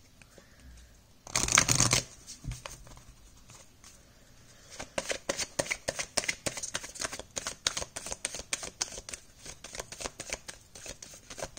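A deck of oracle cards being shuffled by hand. About a second and a half in there is a loud, short rustling burst. From about five seconds in comes a quick, steady run of soft card slaps, several a second, as the cards are passed from hand to hand.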